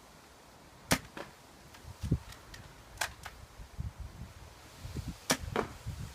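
Stock Tokyo Marui VSR-10 G-Spec spring-powered bolt-action airsoft rifle firing, each shot a sharp snap, with the clacks of the bolt being worked between shots. The loudest snap comes about a second in and another near the end, each followed shortly by a fainter tick.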